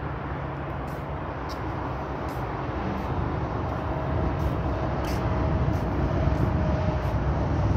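Road traffic on a highway: a steady rush of passing vehicles, with a low rumble that grows louder over the second half.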